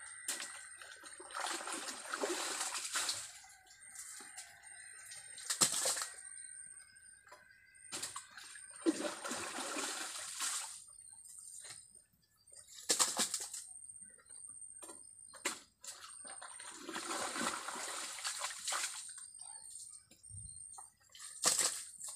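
Muddy water sloshing and splashing as it is scooped and thrown out with a bucket: three long splashes about seven seconds apart, with a few sharp knocks between them.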